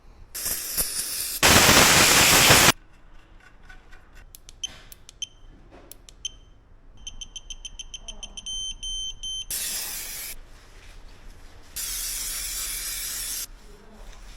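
Several bursts of hissing, the loudest about a second and a half in and lasting just over a second, with shorter ones later. A quick run of high electronic beeps comes in the middle.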